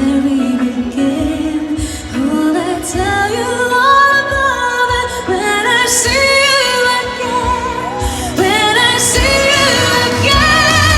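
Female vocalist singing a pop ballad live over backing music, holding long notes with vibrato; the accompaniment grows fuller with a stronger bass about ten seconds in.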